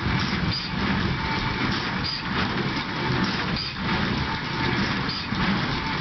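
Tractor and hay baler running, with a regular mechanical stroke about every one and a half seconds over the engine's steady drone.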